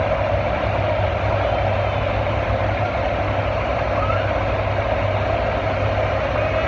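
Farm tractor engine running hard under load while pulling the sled down the track, heard from a distance as a steady drone.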